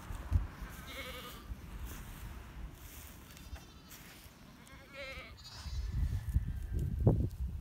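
Savanna nanny goat in labour bleating, several short calls a second or two apart, with a low rumble that is loudest near the end.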